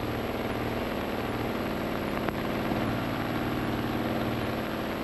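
Ilyushin Il-2's Mikulin V12 aero engine running steadily, an even drone with no change in pitch, with a faint click about two seconds in.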